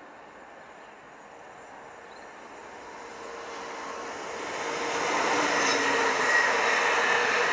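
Intermodal container freight train approaching and passing close by: a steady noise of wheels running on rail that grows louder over the first five seconds and then holds at its loudest as the container wagons go past.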